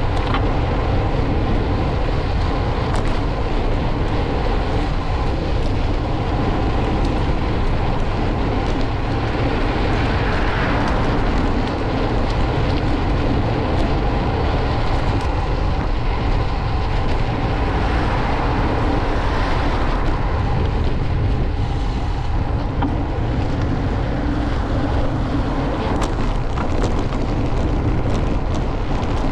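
Steady wind rumble and city traffic noise from a moving bicycle ride, swelling twice, about ten seconds in and again just before twenty seconds.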